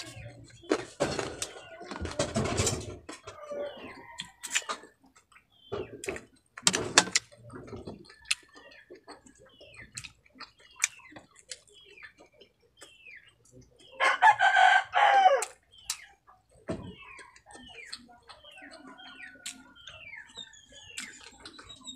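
Crispy fried food crunching and being chewed close to the microphone in two loud spells, early and about a third of the way in. A rooster crows once, about two-thirds of the way through, and short chirps sound on and off throughout.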